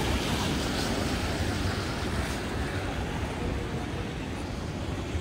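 Steady rush of downtown street traffic with wind on the microphone, the higher hiss easing off a couple of seconds in.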